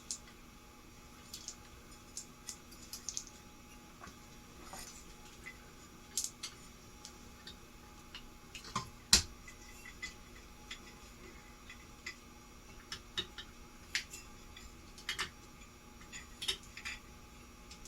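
Scattered small clicks and taps of hands handling and fitting ceiling fan switch housing parts and screws, with one sharper knock about nine seconds in.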